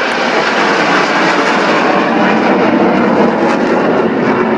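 Fixed-wing aircraft passing low overhead, its engine noise a loud, steady rush.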